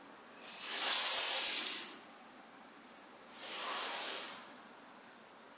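Two hissing swishes of noise that swell up and die away: a loud one about a second and a half long, then a softer, shorter one about three seconds in.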